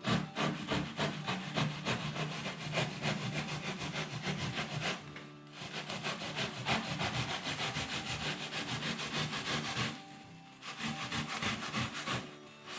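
A saw cutting through wood in fast repeated strokes, stopping briefly twice.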